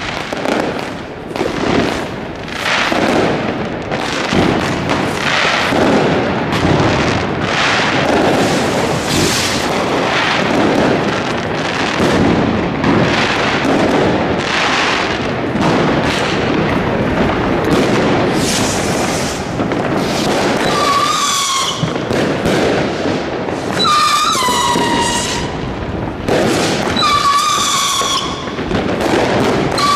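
Dense New Year's Eve fireworks: a constant barrage of overlapping bangs and crackling from many rockets and firecrackers. From about two-thirds of the way in, a pitched tone that falls slightly in pitch repeats roughly every three seconds over the bangs.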